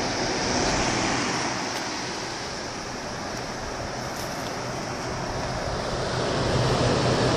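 1977 Emerson Quiet Kool 8,000 BTU window air conditioner running with only its fan, a steady rush of air; the compressor has not kicked on. The sound grows louder near the end, with a low hum coming in.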